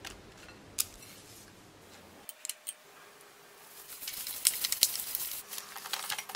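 Plastic cling wrap crackling and crinkling as it is pulled and stretched over a glass bowl, a dense run of sharp crackles from about four seconds in. Before that, a few light clicks and taps.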